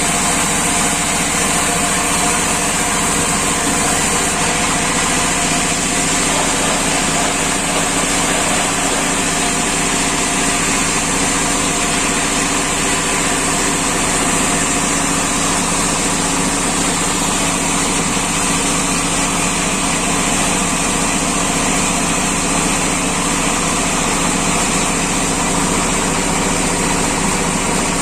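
Wood-slicing machine at a sawmill running steadily: a continuous machine drone with a strong high hiss, no break and no change in pitch.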